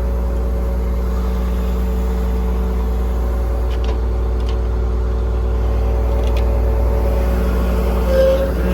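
5.9 Cummins inline-six diesel in a Ford F750 truck running at a steady speed, with a deep, even hum that swells slightly near the end.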